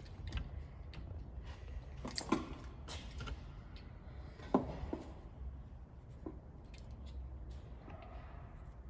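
Small handling noises of work on an electrical cord: a few sharp snips and clicks as excess filler string and paper are trimmed from the stripped cable end, the two loudest about two and four and a half seconds in.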